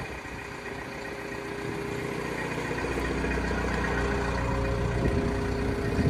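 Manitou telehandler's diesel engine idling steadily, growing louder over the first few seconds and then holding even.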